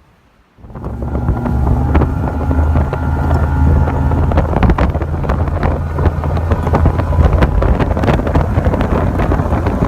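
Bass boat's outboard motor running at speed with wind on the microphone and many sharp knocks; it cuts in abruptly about half a second in.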